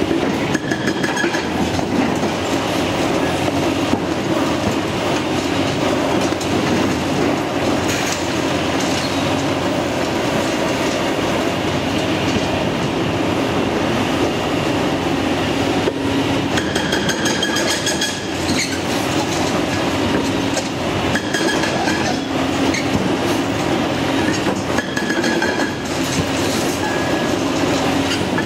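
Hydraulic breaker hammer on a Caterpillar 349E excavator pounding a concrete wall in a fast, continuous rattle of blows. In places the strikes ring out more sharply.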